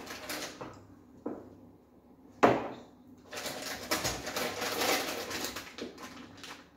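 Toiletry items being unpacked onto a wooden table: a sharp knock about two and a half seconds in as one is set down, then a couple of seconds of crinkling plastic packaging being handled.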